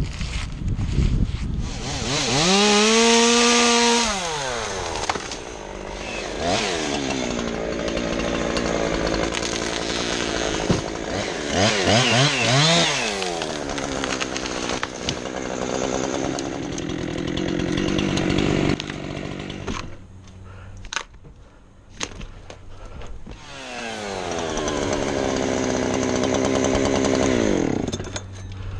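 Chainsaw running and cutting into an ash tree, its engine pitch rising and falling several times. About twenty seconds in it drops off for a few seconds, with a few sharp knocks, then runs up again near the end.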